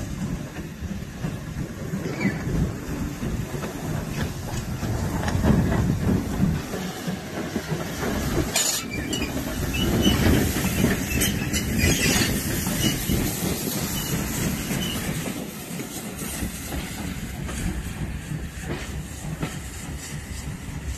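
Small steam tank locomotive pulling away with a brake van in tow. The wheels clatter over the rail joints as the brake van passes close by, with a run of sharp clicks around the middle before the train recedes.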